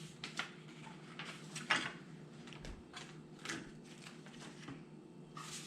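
Handling of plastic parts and packaging during assembly: several short, scattered rustles and light clatters, the loudest a little under two seconds in and another near the end, over a steady low room hum.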